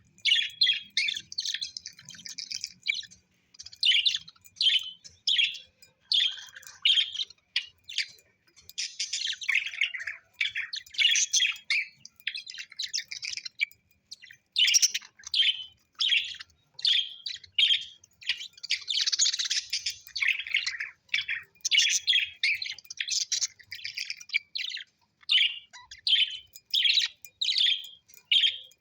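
Parrots chirping and chattering in quick, high, repeated calls with only brief pauses.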